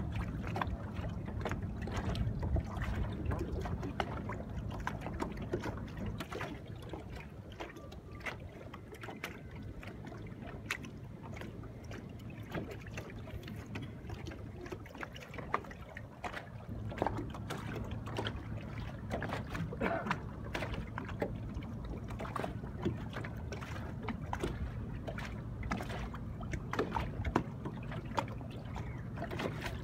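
Small water splashes and slaps against a boat's hull, with a low steady hum underneath.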